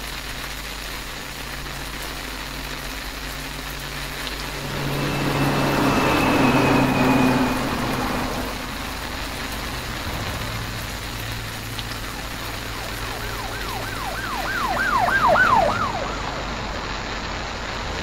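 Street traffic: a steady rumble of vehicles, one passing louder about a third of the way through. Near the end a siren yelps for a couple of seconds, its pitch sweeping up and down about three times a second.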